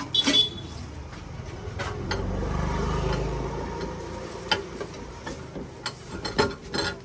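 Metal clicks and clinks from the burner parts of a two-burner gas stove being handled and fitted: a sharp clank just after the start, a low rumble swelling in the middle, then a run of lighter separate clicks in the second half.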